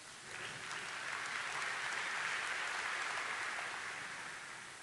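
A soft, even hiss, like distant applause, that swells up over the first second or two and fades away near the end.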